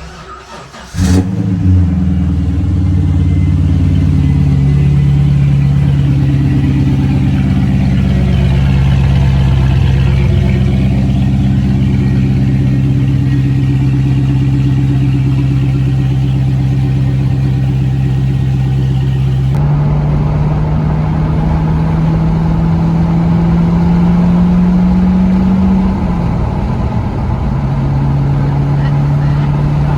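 V8 engine of a Holden Commodore SV8 running, coming in suddenly and loud about a second in and then holding a steady pitch. Later its pitch climbs slowly, then dips and settles near the end, like a gear change while driving.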